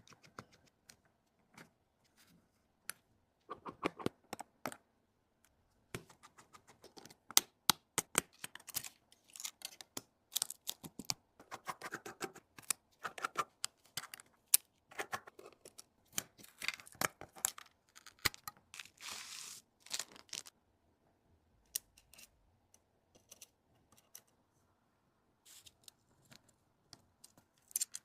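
Irregular sharp clicks, taps and short scraping sounds of small hand tools working on a smartphone during a repair, with a longer scraping or peeling stretch about two-thirds of the way through.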